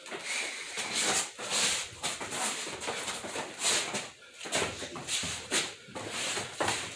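Sparring boxers breathing hard, with short sharp hissing exhales roughly once a second.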